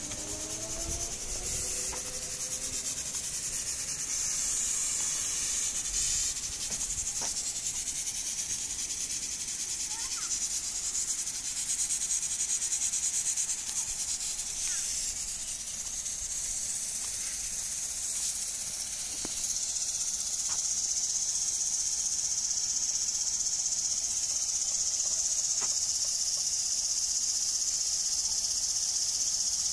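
Insects chirring in a steady high-pitched drone that grows a little louder about two-thirds of the way through.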